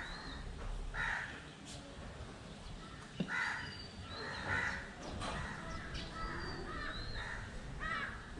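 Crows cawing repeatedly, a harsh call roughly every second, with thin high whistled calls of smaller birds between them.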